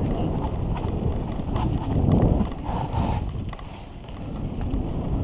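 Mountain bike running fast down a dirt trail: tyres rumbling over the ground and the bike rattling and clicking over bumps. It is loudest about two seconds in and eases off around four seconds.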